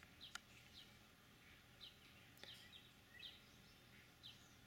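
Faint background birdsong: short high chirps, each falling in pitch, repeating every second or so, over a quiet outdoor hush. Two faint sharp clicks come about a third of a second in and about halfway through.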